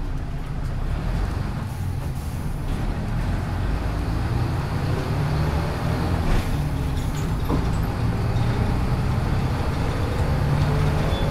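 1996 Hino Blue Ribbon city bus (KC-HU2MPCA) running along the road, heard from inside the cabin: a steady low diesel engine drone with road noise. The engine note climbs in pitch in the second half.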